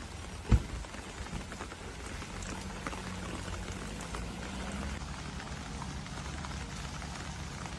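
Steady rain falling on floodwater, with scattered small drip ticks, and a single sharp thump about half a second in.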